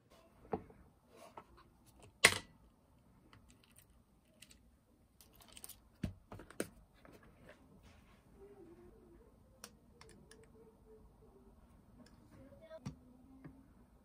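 Scattered light plastic clicks and taps of a pen-style mini UV nail lamp being handled and clipped into a phone holder, the sharpest click about two seconds in.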